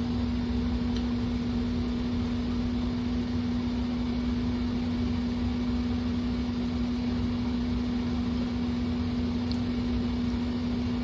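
Kitchen range-hood exhaust fan running: a steady hum with one constant low tone over a rush of air.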